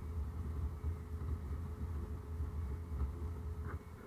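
Thojomech F12A CNC mill's spindle running with a standard cutter milling aluminium under flood coolant: a steady low rumble with a faint steady whine above it. The rumble stops shortly before the end.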